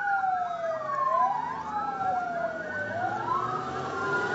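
Two vehicle sirens wailing together, their pitches sweeping slowly up and down and crossing each other, over a low engine hum.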